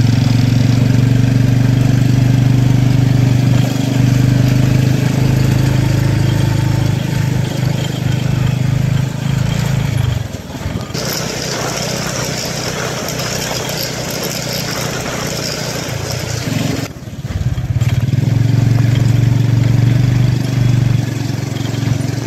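Motorbike tuk-tuk's motorcycle engine running with a steady low drone, heard from the passenger trailer. About halfway through, the drone drops away and a rushing wind and road hiss takes over for several seconds. The drone returns near the end.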